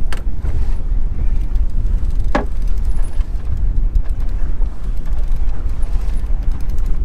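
Wind rumbling steadily on a windscreened action-camera microphone aboard a sailboat under sail, with water washing along the hull; one short knock about two and a half seconds in.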